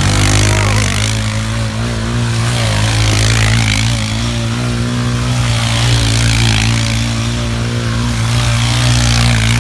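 ATV engine running at a steady, even pitch, with a hiss that swells and fades over it.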